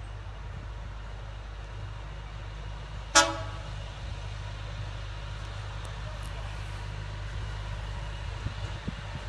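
Miniature-railway diesel locomotive sounding one short horn toot about three seconds in as it approaches, over a steady low rumble.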